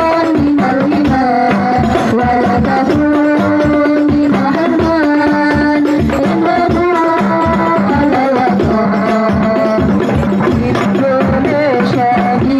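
Sholawat, Islamic devotional song, sung by women's voices into microphones over a steady hand-drum beat. The voices hold long, ornamented notes.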